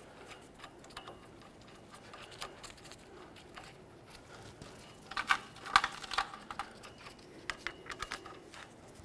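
Steel bolts being started by hand into a Chevy Express 3500 rear axle shaft flange: faint metallic clicks and taps, a few sharper ones clustered about five to six seconds in.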